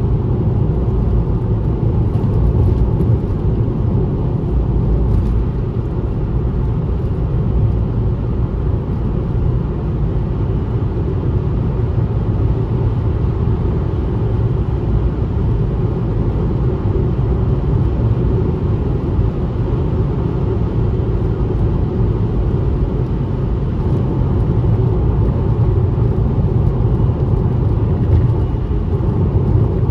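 Car travelling at highway speed: a steady low rumble of road and engine noise.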